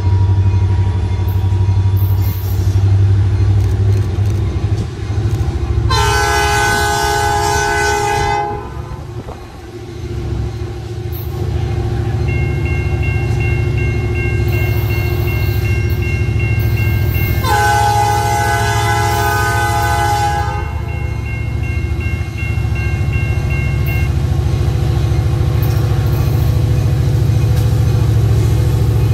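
Freight diesel locomotive approaching with a steady low engine rumble, sounding two long blasts on its multi-note horn, about six and eighteen seconds in. A bell rings steadily between the blasts and through the second one.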